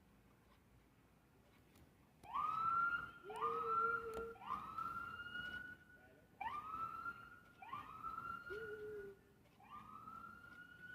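Police car siren giving a string of short rising whoops, about one a second, starting about two seconds in, with a brief pause midway.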